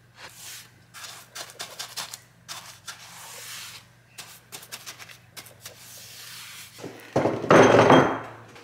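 Paintbrush bristles scratching in short strokes along a wall and baseboard edge, with small taps of the brush against the paint can. About seven seconds in comes the loudest sound, a scraping clatter of about a second as a metal stepladder is moved.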